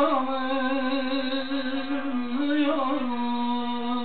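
A man's voice holding one long sung note that bends a little, in a Turkish folk song, over a bağlama (long-necked saz) strummed under it.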